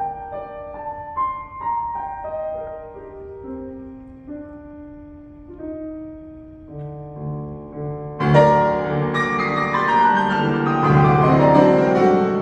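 Piano playing a classical piece: a quiet melody stepping downward, then about eight seconds in it turns loud, with full chords.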